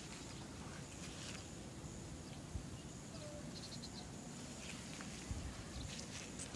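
Faint open-air ambience: a steady high insect buzz with short high chirps coming in quick runs, and a couple of soft thuds.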